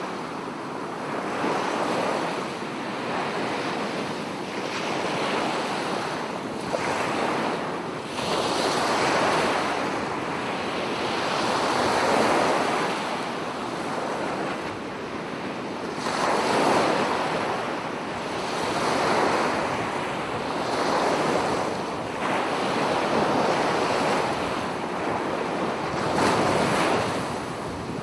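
Ocean surf: waves breaking and washing in, a rushing noise that swells and eases every few seconds.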